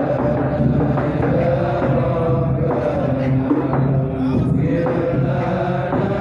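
Devotional chanting: voices holding long notes in a slow, continuous melody.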